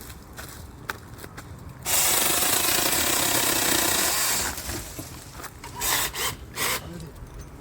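Cordless brushless 6-inch handheld mini chainsaw cutting through wood: a steady cut of about two and a half seconds starting about two seconds in, then two short bursts near the end. Quieter clicks and rustling come before the cut.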